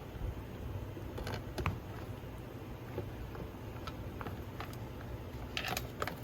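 Scattered light clicks and knocks of a chainsaw's housing being handled and turned over on a workbench, with a short cluster of clicks near the end, over a steady low hum.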